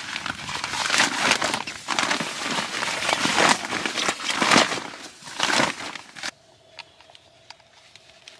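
Irregular bursts of crinkling, rustling handling noise, then at about six seconds a sudden cut to quiet with a faint steady hum.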